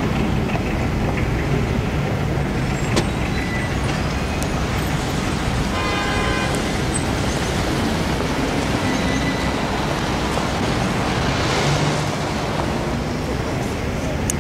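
Steady city street traffic with cars passing, one swelling a little louder about twelve seconds in, and a brief pitched tone about six seconds in.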